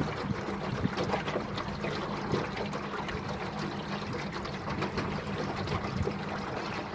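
Water splashing and trickling, with many small crackles over a steady low hum.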